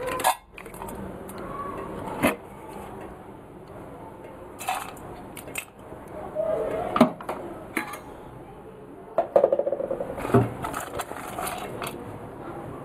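Stainless steel kitchen bowls, cups and a spoon clinking and knocking against each other and the counter in several separate knocks. About three-quarters of the way through there is a short burst of quick rattling.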